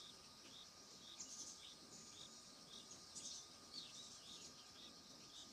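Faint wild birdsong: a short high chirp repeated about three times a second, with brief higher twittering calls over it.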